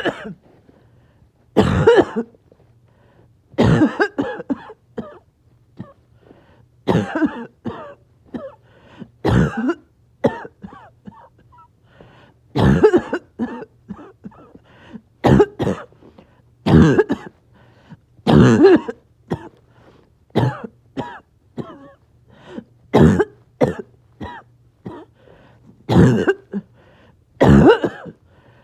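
A person's repeated coughing fits: about a dozen loud, harsh coughs every two or three seconds, most followed by a string of weaker coughs.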